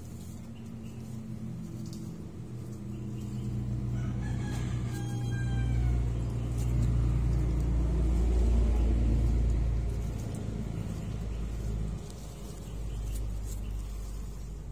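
A rooster crows once, about four seconds in, over the low rumble of an engine that swells to its loudest in the middle and then fades.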